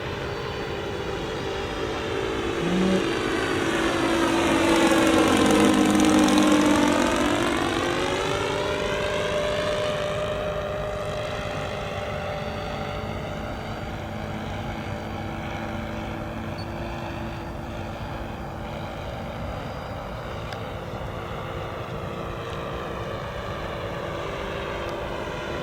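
The engines of a radio-controlled model Cessna 337 Skymaster running in flight: a steady propeller drone that swells to its loudest about six seconds in as the model passes close, then settles into an even, quieter drone with a slight rise in pitch.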